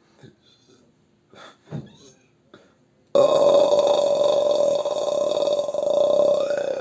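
A long, loud belch starting abruptly about three seconds in and held at a steady pitch to the end. Before it, only a few faint short sounds.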